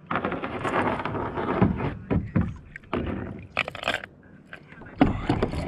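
Waves slapping and sloshing against a plastic fishing kayak's hull in a choppy swell, in uneven surges with a few sharper splashes near the end.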